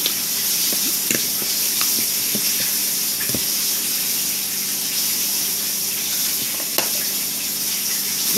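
Pork chops frying in a pan: a steady sizzling hiss, with a few faint clicks and taps over it.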